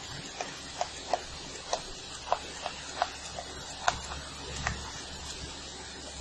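Chalk writing on a blackboard: about a dozen short, irregular taps and scratches as numbers are written, over a steady low hum.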